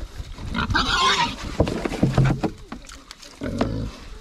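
Pigs grunting and chewing as they feed from a tub, with a short, harsher, higher-pitched noise about a second in.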